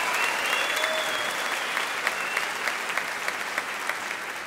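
Live concert audience applauding after a song, the clapping slowly dying away.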